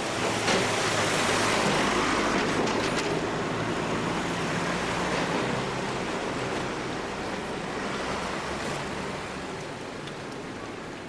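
Street traffic: a vehicle passes close, loudest in the first few seconds, then fades into a steady hum of traffic with engines running.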